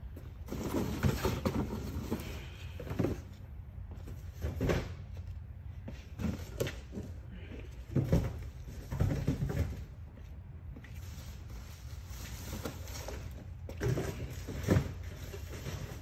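Cardboard boxes being thrown and pushed into a vertical baler's loading chamber: irregular thuds and cardboard rustles, a few seconds apart, over a steady low hum.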